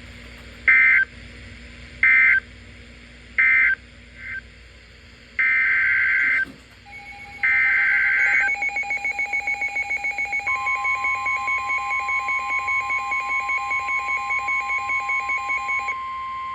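Emergency Alert System tones: several short screeching bursts of digital data code, then two longer bursts, followed by a rapid pulsing beep and, from about ten seconds in, a steady alert tone. All of it stops sharply near the end. These are the signalling tones that announce a new warning being broadcast.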